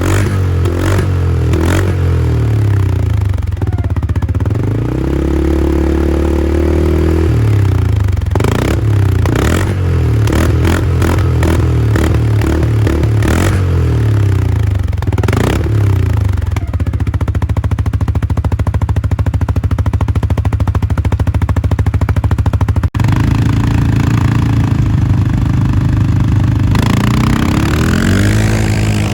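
2021 CFMOTO CForce 450L ATV's single-cylinder engine running, its revs climbing and falling back: one rise about four seconds in, a steady stretch in the middle, and another climb near the end. Scattered knocks and clatter are heard in the first half.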